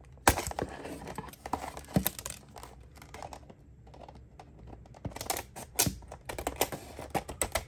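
Stiff plastic blister packaging clicking and crackling as it is handled and snipped with scissors: a run of irregular sharp clicks, coming thicker in the last few seconds.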